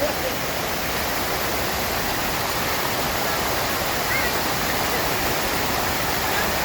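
Rushing river water, a loud steady wash of flowing water with no breaks.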